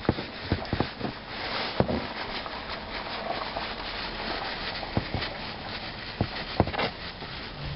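Crumpled paper towel rustling and rubbing as an engine oil drain plug is wiped clean, with a few light clicks scattered through.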